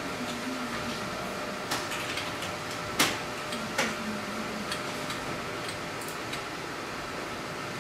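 Steady room hum from running equipment, with a few sharp clicks or taps. The loudest comes about three seconds in, with lighter ones shortly before and after.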